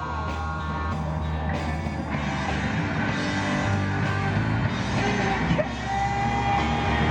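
Street band of horns and drums playing, growing louder, with one long held note near the end.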